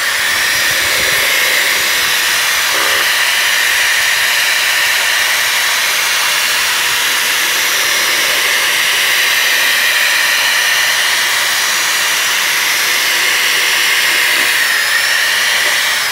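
Corded electric drill running steadily at full speed, spinning a bent nail that stirs paint in a plastic bucket.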